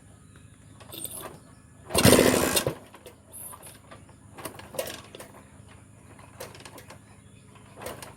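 Motorcycle engine being started in a no-start test: a loud burst of under a second about two seconds in, over a faint steady low hum, with a few small clicks.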